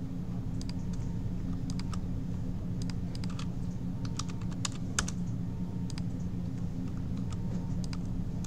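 Computer keyboard and mouse clicking irregularly during CAD drafting, over a steady low hum.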